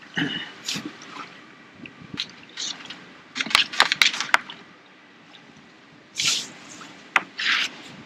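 Wet handling noises from a just-landed F1 carp and the water around it: squelches and splashes, with a quick run of sharp clicks about halfway through.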